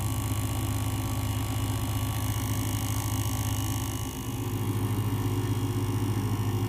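Outback ExtremeAire 12-volt portable air compressor running steadily while filling a tire, a continuous mechanical hum with a rapid pulsing under it, and the truck's engine idling underneath. The low hum drops slightly about four seconds in.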